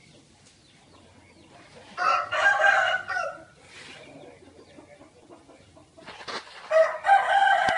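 A rooster crowing twice, each crow a drawn-out pitched call of about a second and a half; the second crow begins near the end.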